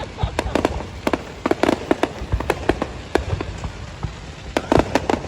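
Aerial fireworks going off: a fast, irregular run of sharp bangs and crackles over a low rumble, with a dense cluster of bangs near the end.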